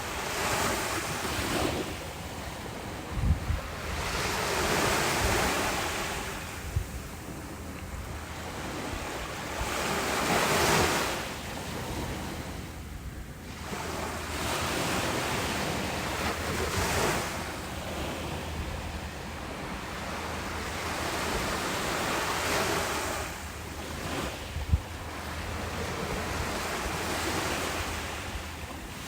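Small sea waves washing onto a shore, the surf swelling and ebbing every five or six seconds, with wind. Two brief low thumps, about three seconds in and near the end.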